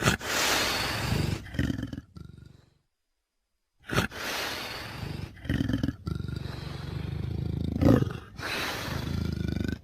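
Utahraptor creature sound effect: a rasping roar of about two and a half seconds, a second of silence, then a longer run of growling roars that keeps going.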